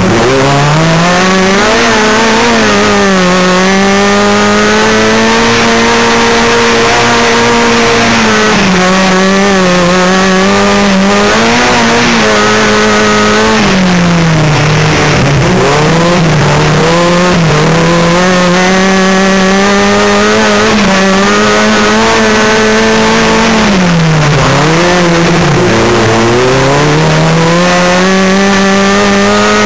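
Onboard sound of a VW-engined class 5 off-road race buggy's engine held hard at high revs, its pitch dropping and climbing back several times as the throttle is lifted and reapplied, most deeply about halfway through and again about four-fifths in.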